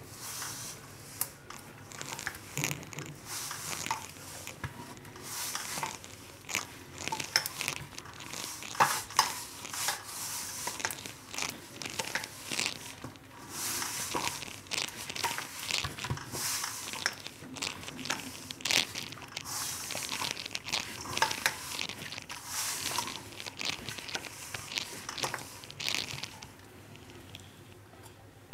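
Hands mixing wheat flour, water and crushed garlic into dough in a stainless steel bowl: an irregular crumbly rustling with many short sharp crackles as the wet flour clumps together.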